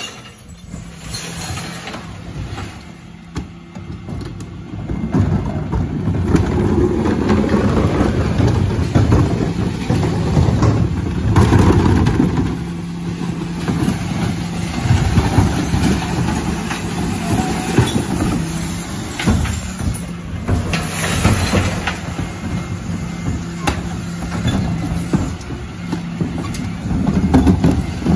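Dennis Elite 6 refuse lorry running with its hydraulics working as the Terberg lifters raise and tip wheelie bins into the rear hopper, with a steady low hum under repeated clattering and rattling of bins and recycling falling in.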